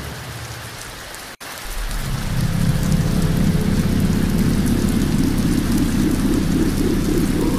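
Heavy rain with a low rumble of thunder, cutting in after a brief drop-out about a second and a half in and then holding steady.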